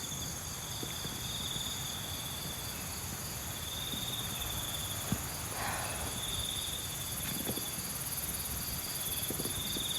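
Night chorus of crickets and other insects: several steady high trills, one of them coming in phrases of a second or so every few seconds. Underneath runs a low rumble of wind on the microphone, with a few faint knocks.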